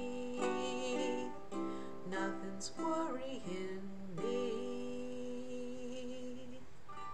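Ukulele strummed with a woman singing the closing notes of the song. The last note is held with a wavering vibrato and stops about six and a half seconds in.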